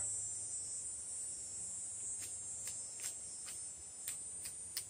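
Ferrocerium rod being struck with a striker to throw sparks: a run of short, sharp scrapes, two or three a second, starting about two seconds in.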